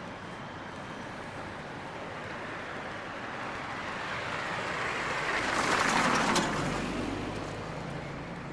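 A car driving past on the road: its engine and tyre noise builds over several seconds, peaks about six seconds in, then fades away.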